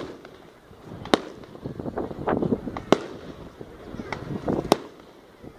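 Fireworks bursting overhead: three loud bangs about two seconds apart, with fainter pops between them.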